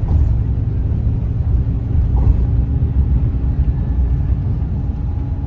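Steady low rumble of a moving vehicle, heavy in the bass.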